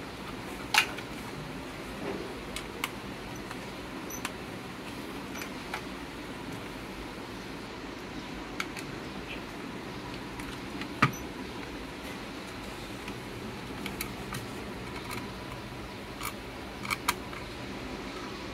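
Scattered small clicks and taps of a hand screwdriver and screws as the metal-core LED board is screwed into a plastic LED panel frame, over a steady background noise. The sharpest clicks come about a second in, around eleven seconds in, and as a close pair near the end.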